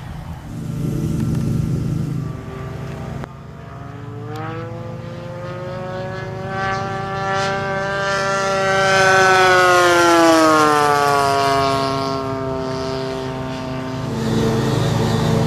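Radio-controlled model airplane's engine flying overhead, its pitch rising and growing louder to a peak about two-thirds of the way through, then falling away as it passes. The first few seconds hold a lower, rougher rumble before a sudden change.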